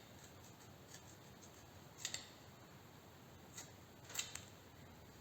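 Scissors snipping in a few short, crisp cuts: one about two seconds in, and two or three more close together near the end.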